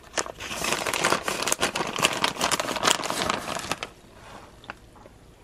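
Plastic bag crinkling and rustling in a rapid crackle as shredded Parmesan is shaken out of it; it dies away a little before the end.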